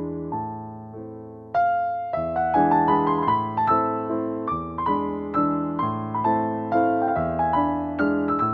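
Background piano music: a flowing run of notes and chords. It thins out briefly about a second and a half in, then comes back louder.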